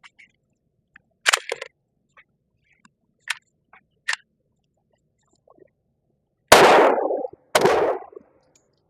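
Two shots from a Glock G44 .22 LR pistol about a second apart near the end, each with a short echoing tail, after a few sharp metallic clicks of the pistol's action being worked. It is firing Federal Punch 29-grain rounds, which are not cycling the slide reliably.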